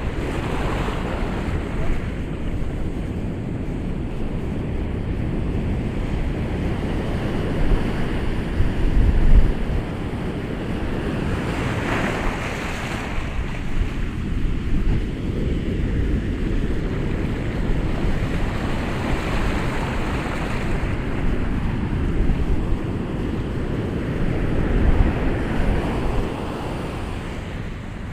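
Ocean waves breaking and washing on a shore in a continuous surf, swelling louder about a third of the way in and again near the end.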